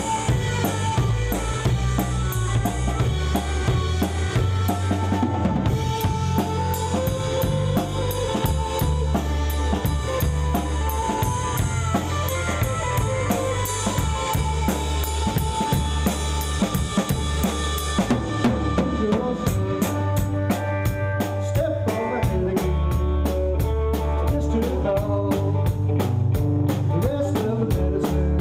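Rock band playing live: a drum kit with kick, snare and cymbals keeps a steady beat under stepping bass notes and guitars.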